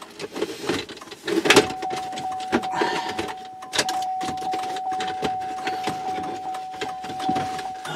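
Plastic clicks, knocks and rattles as a 2005 Chevrolet Suburban's dash trim and instrument cluster are worked loose by hand, the loudest knock about a second and a half in. A steady, thin, high-pitched electronic tone from the truck comes in at the same moment and holds.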